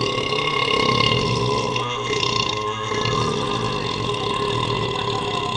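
One long, loud burp, held at a fairly steady pitch for more than five seconds before it cuts off.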